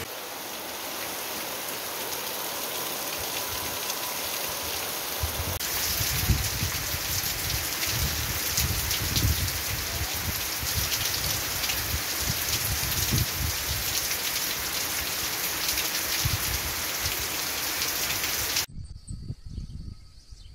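Heavy rain pouring down, a dense continuous hiss of water falling on roofs, ground and foliage. The rain sound changes abruptly about six seconds in as one recording gives way to another, and cuts off suddenly near the end, leaving a much quieter outdoor scene.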